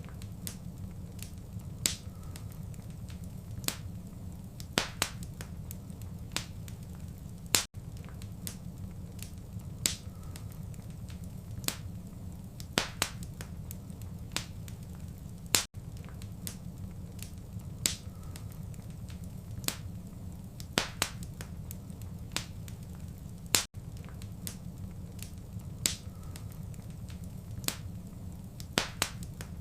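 Wood fire in a fireplace crackling: a steady low rumble with frequent sharp, irregular pops and snaps. Brief dips in the sound come about every eight seconds.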